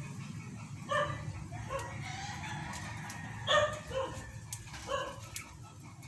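About six short, sharp animal calls, spaced half a second to two seconds apart, over a low steady hum.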